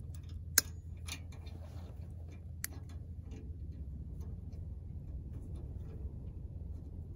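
Metal clicks and clinks of locking pliers crimping an aluminium collar onto a wire-rope tether, with the hitch pin and its ring knocking against them. There is one sharp snap about half a second in and a few lighter clicks after, over a steady low rumble.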